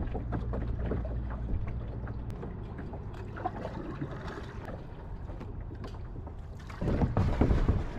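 Canoe drifting on a river: a steady low wind rumble on the action-camera microphone, with scattered light knocks and clicks. A louder stretch of knocking comes near the end.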